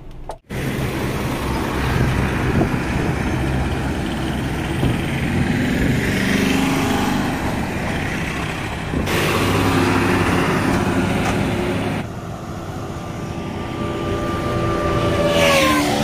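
Highway traffic: trucks and other road vehicles running past, a steady engine rumble over road noise. Near the end a passing vehicle's engine note drops in pitch as it goes by.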